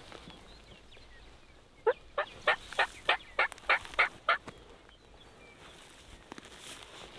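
Turkey calling: a quick run of about nine evenly spaced, sharp notes over roughly two and a half seconds.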